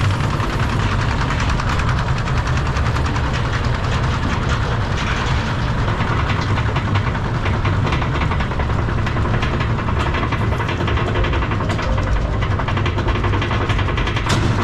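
Roller coaster train running through its helix, heard from onboard: a steady loud rumble of the wheels on the track with rapid rattling and clatter.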